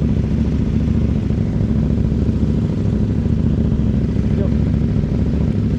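CFMOTO 800NK parallel-twin motorcycle engine running steadily, with no revving, through a decatted exhaust with the stock muffler.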